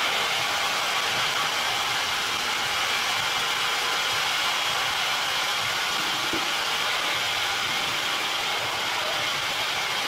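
Band sawmill running steadily with its band wheel spinning: an even, continuous whirring noise that holds the same level throughout.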